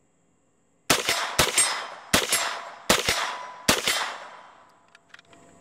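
Five shots in about three seconds from a Trailblazer Pivot 9mm straight-blowback folding rifle. Each shot is followed closely by the ring of a steel target being hit.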